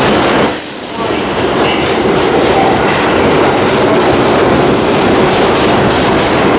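Subway train running through the station, loud and steady, with its wheels clattering over the rail joints and a short high hiss about a second in.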